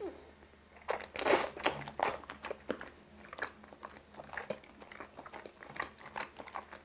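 Close-miked slurping of thick bunmoja sweet-potato-starch noodles, loudest between about one and two seconds in, followed by many small wet chewing clicks as the chewy noodles are eaten.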